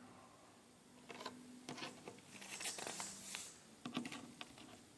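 Sheets of paper sermon notes being handled and shuffled on a pulpit: faint rustling and small taps in several short bursts, the longest about halfway through.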